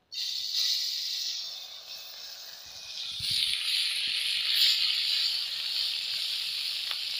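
Small spice-coated fish sizzling in hot oil in a kadhai as handfuls are dropped in. The sizzle starts suddenly, eases after about two seconds and swells again as a second handful goes in.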